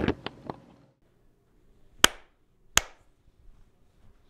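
Two sharp knocks about three-quarters of a second apart, after a few faint clicks at the start; quiet otherwise.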